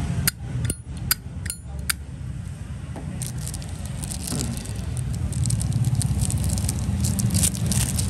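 Metal Zippo lighter lid clinking as it is flicked open and snapped shut, five sharp clicks in quick succession in the first two seconds, followed by lighter scratching and ticking as it is handled. Low traffic rumble underneath.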